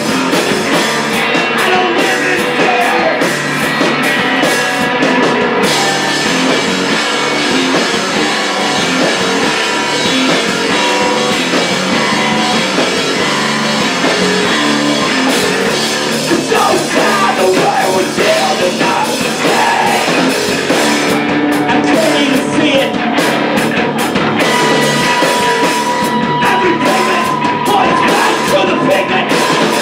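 Live rock band playing loud and without a break: two electric guitars, electric bass and drum kit.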